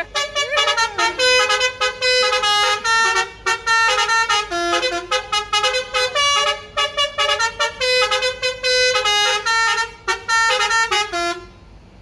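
Indonesian bus telolet horn, a multi-trumpet musical air horn, playing a fast tune of short staccato notes that step up and down in pitch. It stops abruptly about a second before the end.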